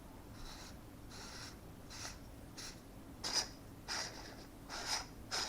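Hands turning and handling threaded parts of an airsoft M4 upper: a series of short scraping rubs, about seven or eight, louder and sharper in the second half.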